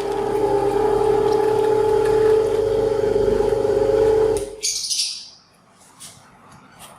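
Electric meat grinder motor running with a steady whine as it grinds chocolate candy, cutting off about four and a half seconds in, followed by a short hiss and faint rustling.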